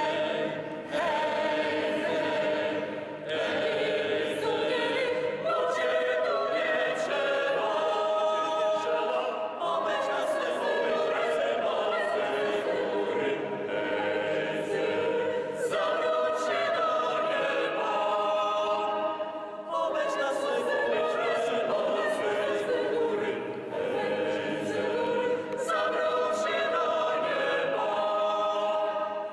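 Mixed choir of men's and women's voices singing a cappella in several parts, with brief pauses between phrases.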